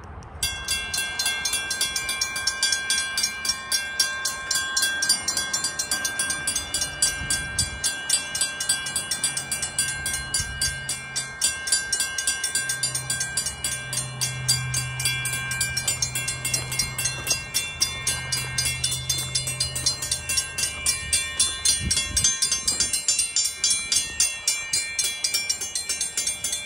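Railroad crossing signal's mechanical bells start ringing about half a second in with fast, steady strokes: the crossing is activated. A low hum runs through the middle as the crossing gate mechanisms lower the gates.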